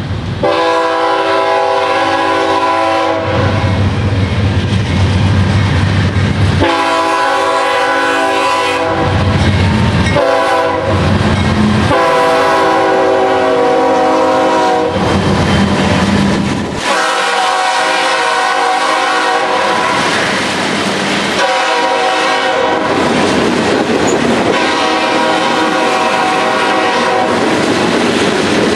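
Freight train's diesel locomotive air horn blowing a chord in a long series of blasts with brief breaks, as the train passes close by. Underneath, the hopper cars' wheels clatter over the rail joints.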